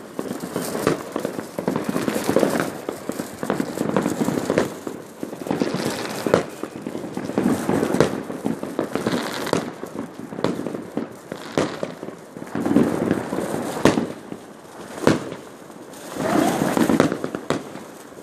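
Many fireworks and firecrackers going off all around at once: a dense, continuous crackle of pops with frequent louder, sharper bangs from aerial shells.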